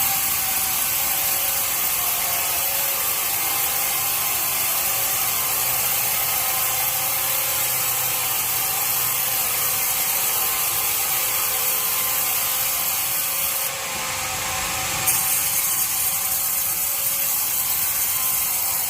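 Sawmill bandsaw running with a steady mechanical whir. The sound dips briefly about fourteen seconds in, then carries on.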